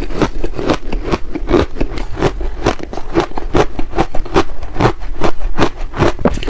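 Refrozen ice being bitten and chewed close to the microphone: a steady run of crisp crunches, about four a second.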